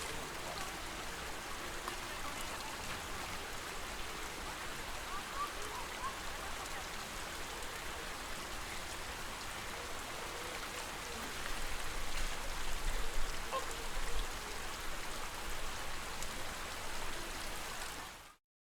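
Steady lake-water ambience: an even hiss of moving water. Low rumbling bumps come in about two-thirds of the way through, and the sound cuts off abruptly near the end.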